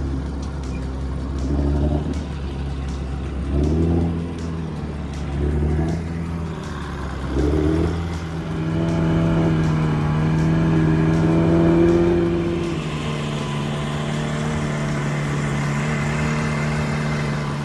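An engine revving in several short surges, then running steadily at a higher speed from about eight seconds in.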